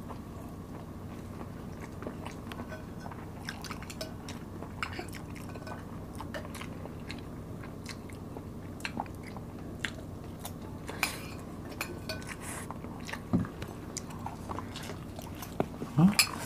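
Close-miked eating: chewing and mouth sounds, with scattered light clicks of spoon and fork on plates over a steady low hum. A louder short mouth sound near the end.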